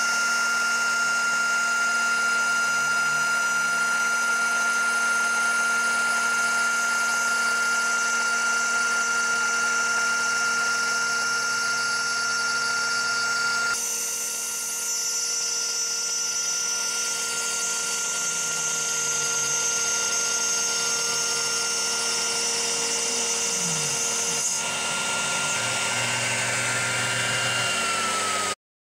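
CNC router spindle turning a 1/8" cutter at 12,000 rpm, milling .135" phenolic sheet, with a steady high whine and the drive motors gliding up and down in pitch as the tool moves. The tone shifts about halfway through and again a few seconds before the end, then the sound cuts off abruptly.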